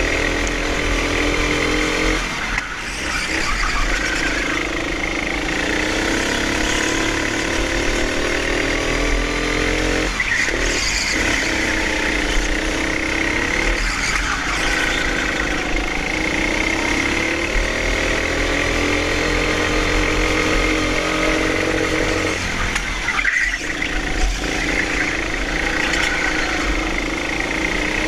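Hire go-kart engine heard from on board, its revs rising and falling through the corners and dropping off briefly several times as the driver lifts, with a steady high whine over it.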